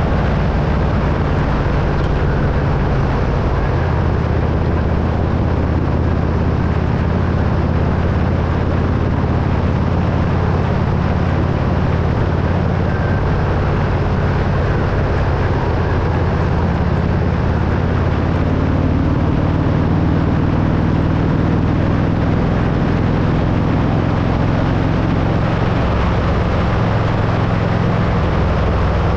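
Motorcycle engine running steadily at road speed, its pitch shifting a little now and then, under constant wind rush on the camera microphone.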